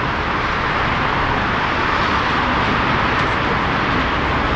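Jet engines of a Boeing 777-300ER (GE90s) running as the airliner rolls along the runway: a steady, even rushing noise with no change in level.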